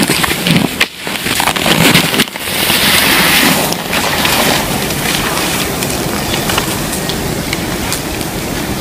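Cross-country skis and poles scraping and crunching on groomed snow as a skier pushes off close by, in uneven surges over the first few seconds. After that a steady hiss remains.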